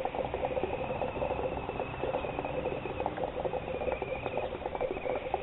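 Water in the base of a small 11-inch Social Smoke Rave hookah bubbling in a fast, continuous gurgle as a smoker draws through the hose.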